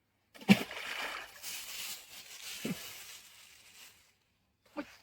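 Water sloshing and splashing, starting with a sharp knock and fading out after about three seconds.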